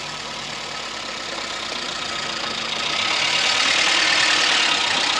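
Hatchback car driving slowly along a gravel lane, engine running and tyres on the gravel, growing louder as it comes up close about four seconds in.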